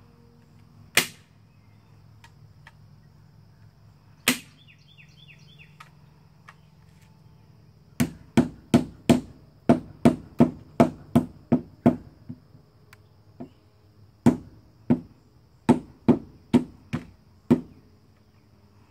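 Sharp tool strikes on wooden lattice from a hand staple gun and hammer: two single snaps, then a quick run of about a dozen strikes at roughly three a second, then several more spaced strikes.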